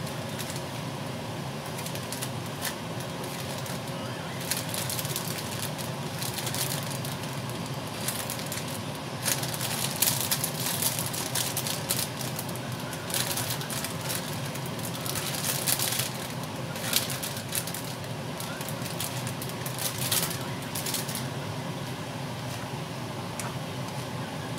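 Food sizzling steadily in a frying pan on a gas burner, with a plastic bag of broccoli crinkling in bursts through the middle as pieces are pulled out of it.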